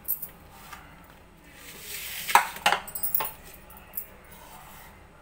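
Ceramic dishes handled on a stone kitchen counter: a few sharp clinks and knocks, the loudest about two and a half seconds in, inside a short scraping sound, with a lighter knock near the end.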